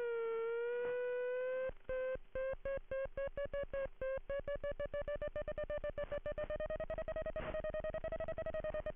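Electronic audio variometer tone for an RC glider: a steady tone that dips in pitch, then about two seconds in breaks into rapid beeps that grow faster, pitch creeping slightly up — the beeping signals the glider climbing in a thermal.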